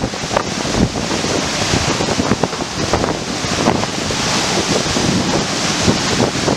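Storm-force wind near a waterspout buffeting the microphone: a loud, continuous rush with crackling gusts that masks the funnel's own roar.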